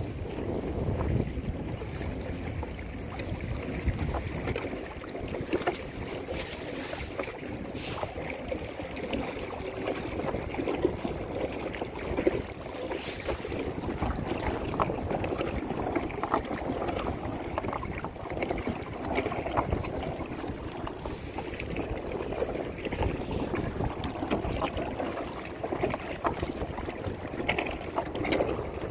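Water splashing and lapping around a kayak, with small irregular splashes and some wind noise on the microphone.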